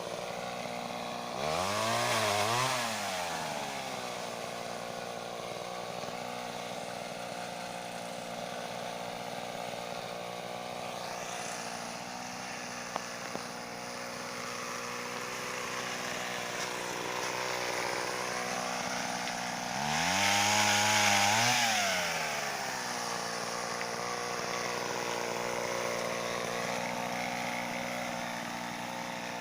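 Pole saw driven by a Mitsubishi TL26 two-stroke brush-cutter engine, running steadily and revved up twice, each time the pitch rising and falling back over about two seconds: once about two seconds in and again about twenty seconds in.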